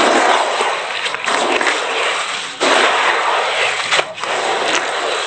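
Gloved hands squeezing and churning damp, crumbly cement-and-sand mix in a plastic tub, a continuous crumbling, scraping noise in long pushes. The noise surges suddenly about two and a half seconds in.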